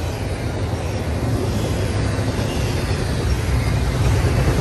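Double-stack intermodal well cars of a freight train rolling past on the rails: a steady rumble of steel wheels on track, growing slightly louder near the end.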